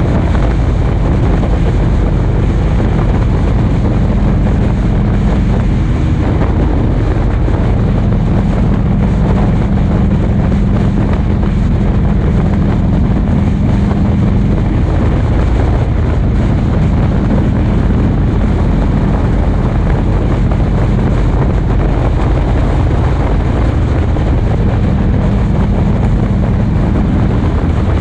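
Motorcycle engine running steadily at cruising speed on the road, with wind noise on the microphone.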